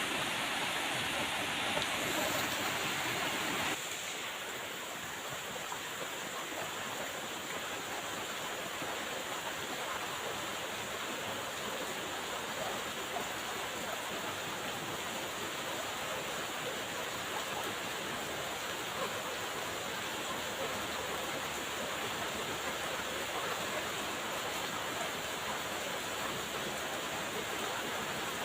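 Steady hiss of falling rain, which drops abruptly to a slightly quieter, duller wash about four seconds in and then runs on evenly.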